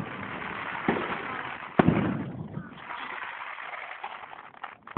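Fireworks display: two sharp bangs about a second apart, with a crackling haze that fades over the next few seconds, and another bang near the end.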